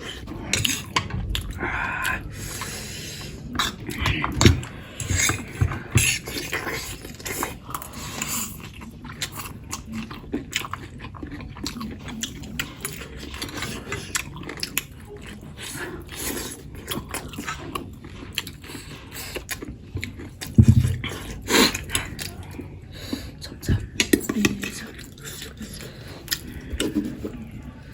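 People chewing and eating, with frequent small clicks, smacks and taps throughout and a few louder knocks about four and twenty seconds in.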